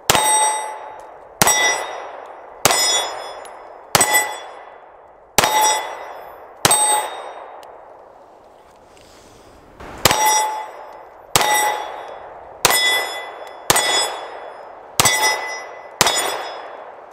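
Kahr K9 9mm pistol fired at a steady pace, about one shot every 1.3 seconds, each shot followed by the ringing clang of the steel plate target it hits. Six shots, a pause of about three seconds, then six more.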